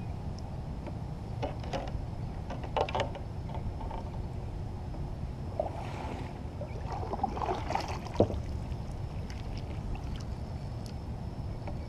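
Handling noises in a fishing kayak: a few sharp clicks and knocks of gear against the plastic hull, and a brief noisy stretch about six to eight seconds in, over a steady low rumble.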